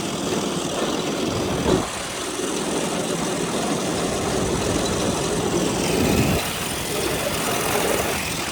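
Go-kart's small engine running, growing stronger about two seconds in and easing off a little after six seconds.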